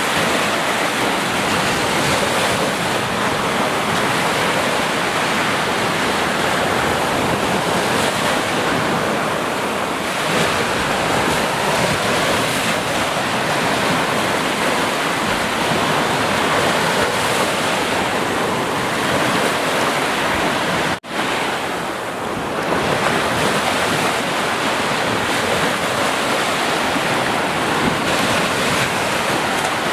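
Ocean surf: a continuous wash of breaking waves swelling gently in strength, with a momentary dropout about two-thirds of the way through.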